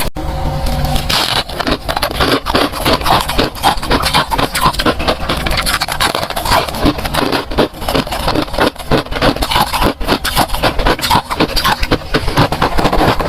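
Crunchy freezer frost being scraped and crunched: a dense, continuous run of rapid crackly strokes.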